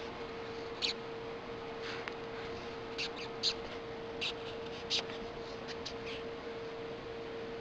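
European rhinoceros beetle stridulating as it is prodded and handled: a series of short, high, scratchy squeaks, about ten in irregular clusters, starting about a second in and stopping near the end. This is the beetle's disturbance or defence call.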